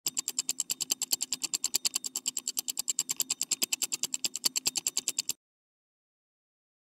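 Rapid, evenly spaced mechanical clicking, about ten clicks a second over a faint low hum, that cuts off suddenly about five seconds in, followed by silence.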